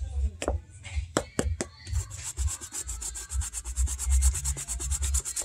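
A toothbrush scrubbing a suede boot, a fast rasping brush-on-suede sound in rapid back-and-forth strokes. A few sharp clicks come in the first two seconds, before the strokes settle into a steady quick rhythm.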